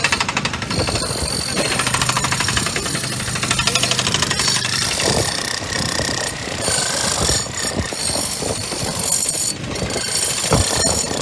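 Corded handheld electric demolition hammers chipping out concrete, a rapid even hammering that is strongest in the first second or so. Construction machinery engines run underneath.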